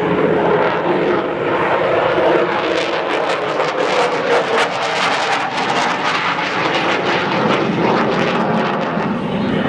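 F-35 fighter's Pratt & Whitney F135 jet engine, a loud continuous roar of jet thrust. A rapid crackle runs through it in the middle.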